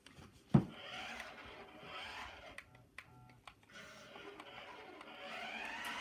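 Toy remote-control car's small electric drive motor whining in short bursts as it drives, then rising in pitch near the end into a steady whine. A sharp knock comes about half a second in.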